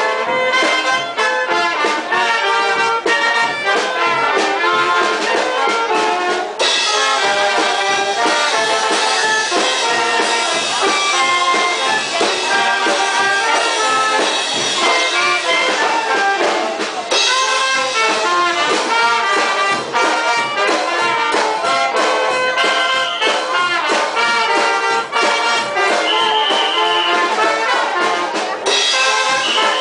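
Brass band music with trumpets and trombones playing a lively dance tune over a regular beat. A brighter hiss joins the band from about six seconds in until about seventeen seconds.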